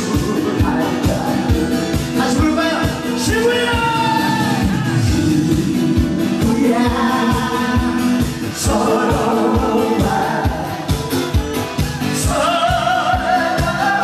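Amplified music with singing over a steady, fast drum beat, as at a pumba troupe's live stage show.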